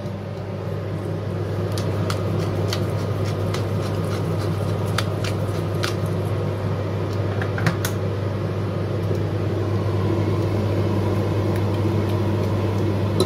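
Steady humming drone of a kitchen fan, with scattered light clicks and taps from a wooden spoon stirring in a stainless-steel pot.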